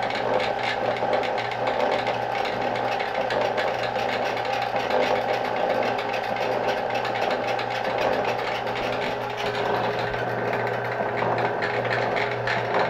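Rhodes metal shaper running, its ram stroking back and forth over a steady motor hum, while cutting an internal keyway in an adapter ring.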